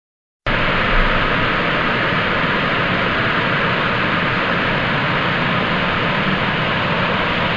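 Television no-signal static: a steady, even hiss that starts abruptly about half a second in.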